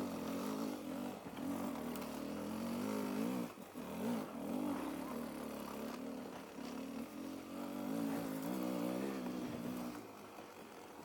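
Off-road motorcycle engine running on a trail ride, its revs rising and falling with the throttle, then dropping off near the end.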